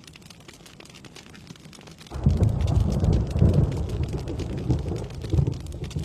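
Steady rain with a sudden peal of thunder about two seconds in, a deep rumble that rolls on and slowly eases.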